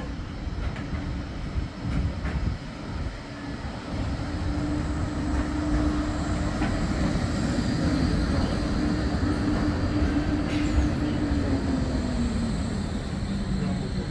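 Bombardier Flexity 2 electric tram running past close by on street track, growing louder as it arrives. It carries a steady hum that drops in pitch near the end.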